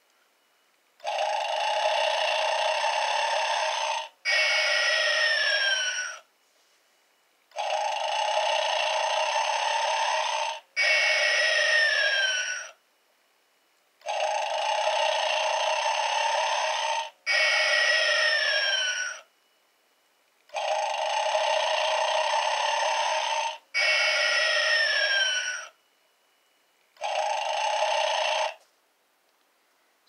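Gemmy animated Snoring Santa's battery-operated electronic snore, starting about a second in. Each snore is a long in-breath of about three seconds, then a shorter out-breath with a falling whistle, repeating about every six and a half seconds. It runs four full times, and a fifth in-breath stops short near the end.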